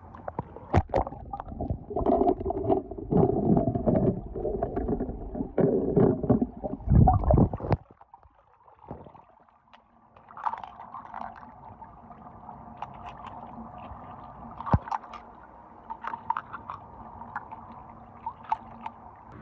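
Water sloshing and splashing for about eight seconds, mostly low and dull, as heard with the camera under the water. Then, after a short gap, light clicks and taps of die-cast toy cars being set down on a marble floor.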